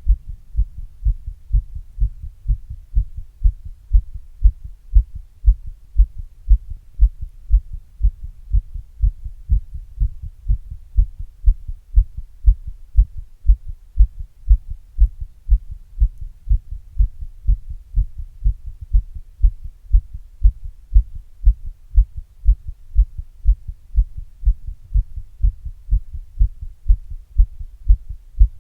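A person's heartbeat picked up close against the chest, recorded through an earbud microphone in a glass: a steady rhythm of low, muffled thumps with a faint hum between them.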